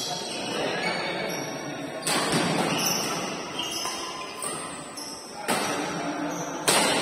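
Badminton rackets striking the shuttlecock in a rally: three sharp hits, about two seconds in, about five and a half seconds in and near the end, the last the loudest. Each hit rings on in the large hall.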